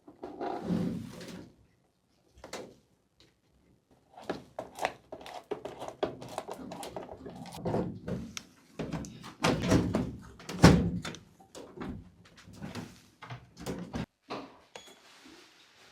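Irregular knocks, thunks and clatter of things being handled in a small room. There is a short burst near the start, then a busy run of knocks, the loudest about eleven seconds in.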